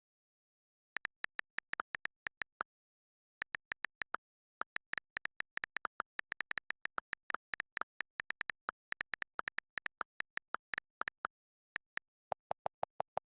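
A run of short electronic blips, irregularly spaced and starting about a second in, with a quicker, lower-pitched run of blips near the end.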